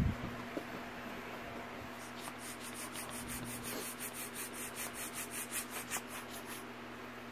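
Hands working a clear plastic bag: a quick run of scratchy rustles, about five a second, for a few seconds, after a single dull thud at the start.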